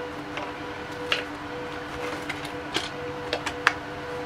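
Scattered small clicks and ticks of a Phillips screwdriver turning a small screw out of a plastic device housing, with the loose screw and plastic being handled, over a steady faint hum.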